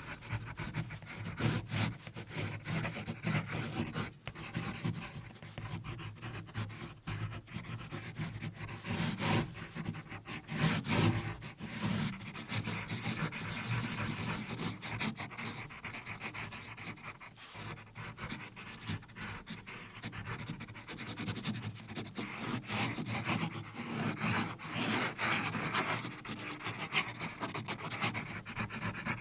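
Close-miked ASMR scratching and rubbing, a dense run of fast small scratches and clicks, louder in a few stretches.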